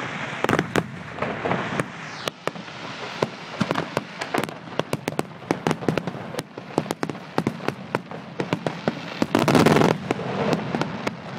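Fireworks display: rapid, irregular bangs and crackles, with a denser, louder cluster of bursts lasting about a second near the end.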